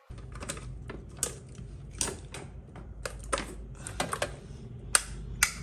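Irregular sharp clicks and knocks, about fifteen of them, as cables, plugs and plastic equipment are handled, over a low steady hum.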